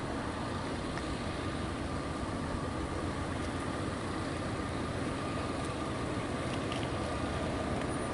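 Distant freight train approaching, not yet in sight: a low steady rumble that slowly grows louder, with a thin steady high whine over it.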